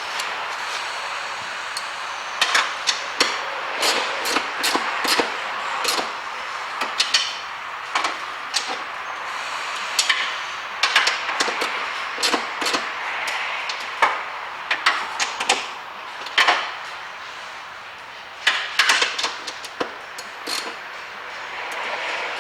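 Irregular sharp clicks and knocks of a socket tool on the door handle's retaining nuts as they are fitted and tightened by hand, some in quick clusters.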